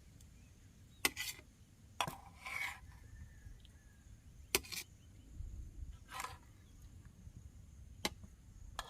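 A spoon clicking against a plate, with short scrapes, at intervals of a second or more while someone eats a meal of rice and gravy.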